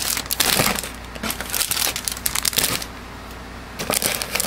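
Clear plastic bags of model-kit runners crinkling and rustling as they are handled and packed back into the cardboard kit box, in irregular bursts with a short lull about three seconds in.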